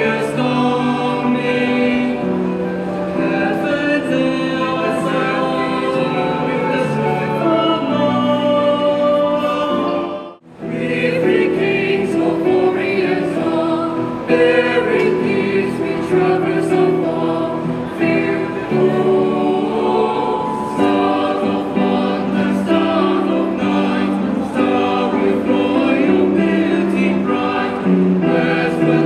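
Mixed choir of boys' and girls' voices singing in harmony, with long held chords; the singing breaks off briefly about ten seconds in.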